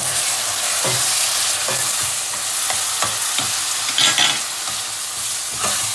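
Blended tomato sizzling as it is poured into hot oil in a stainless steel pan, with a metal spoon scraping the pan several times as it is stirred in. The sizzle flares up briefly about four seconds in.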